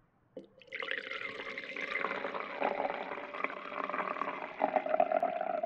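Liquid being poured in a steady stream, filling a container; the tone of the filling rises and grows louder about four and a half seconds in.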